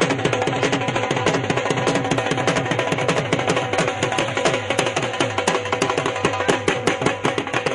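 Music with fast, steady drumming.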